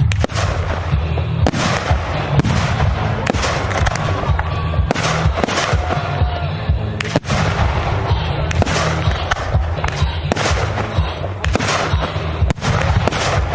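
Fireworks display: aerial shells bursting one after another, sharp bangs and booms about once a second.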